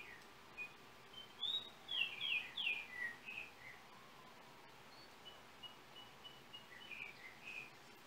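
Yellow oriole singing: clear whistled notes, loudest in a cluster from about one and a half to three and a half seconds in, then a run of short faint notes and a couple more whistles near the end, over a steady faint hiss.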